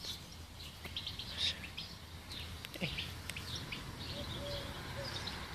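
Small wild birds chirping in short, scattered high calls over a faint steady hum. Near the end comes a run of a few short, low notes at one pitch.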